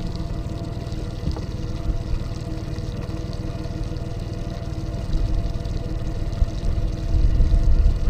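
Steady hum of a small motor with water pouring and trickling, aboard a fishing boat. A low rumble builds near the end.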